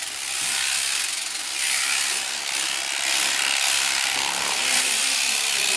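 Power shearing handpiece running and cutting through a black alpaca's fleece: a steady high hiss that swells and dips slightly as the cutter moves through the wool.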